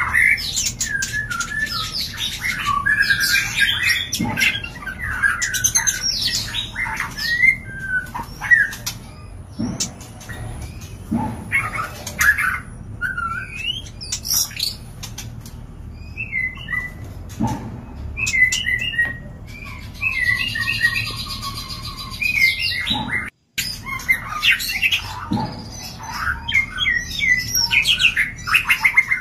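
White-rumped shamas (murai batu) giving mating calls: a dense run of quick chirps, short whistles and harsh squawk-like notes, mixed with sharp clicks. About three-quarters of the way through the sound cuts out for an instant.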